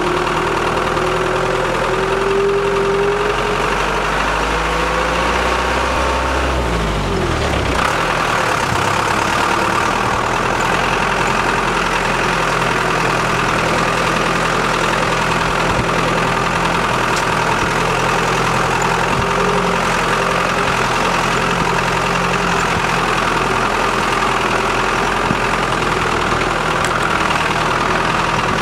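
A vehicle engine running steadily throughout; about seven seconds in its pitch drops and shifts before it settles into an even run again.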